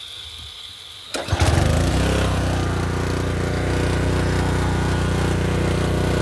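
Honda GS190 single-cylinder four-stroke pressure washer engine pull-started with its new recoil starter: a sharp pull about a second in, the engine catches at once and then runs steadily.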